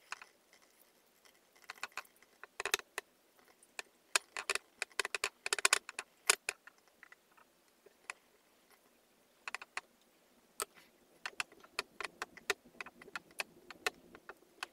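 Irregular light clicks and taps from handling a glass bottle while a paper photo is glued onto it with a brush and smoothed down by hand, coming in dense clusters with a quiet gap in the middle.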